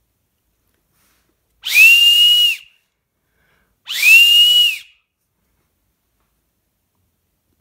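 Two loud, one-second blasts on a home-built Lego-brick whistle voiced like a real whistle or flute, with air split on a wedge. Each blast is a single high, breathy tone that slides up into a steady pitch and drops away as the breath stops.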